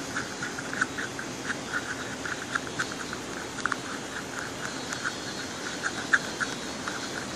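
Shampoo-and-salt slime being mixed, giving a run of small wet squelching clicks, a few a second and uneven in strength.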